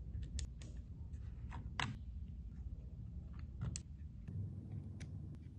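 Faint, scattered small clicks and taps of a hand handling the 3D-printed plastic control box and its buttons, over a low steady room hum; the angklung itself is not sounding.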